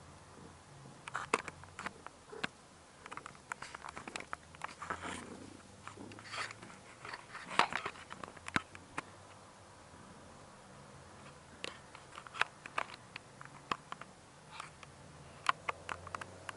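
Newborn kittens and their mother cat shifting about on a bedsheet: irregular soft clicks and rustles of fabric, bunched in the first half and again near the end.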